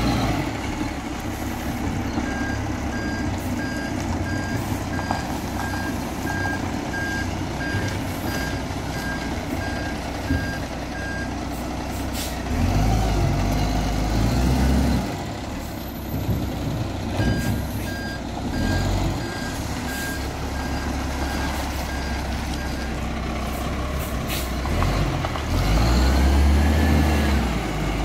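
Iveco side-loader garbage truck's diesel engine running as it manoeuvres, its reversing alarm beeping in an even series for about nine seconds and later again for about six seconds. The engine revs up briefly in the middle and again near the end.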